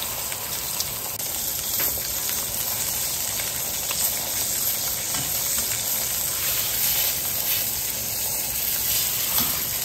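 Beef shanks searing in hot olive oil in a wide stainless steel pan: a steady frying sizzle.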